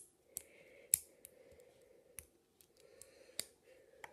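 Plastic LEGO bricks clicking as pieces are handled and pressed together: a few sharp, irregular clicks, the loudest about a second in.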